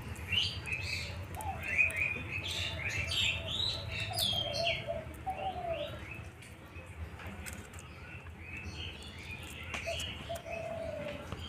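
Birds chirping and calling, many short chirps and sliding notes with some lower cooing notes, busiest in the first five seconds, thinning out, then picking up again near the end.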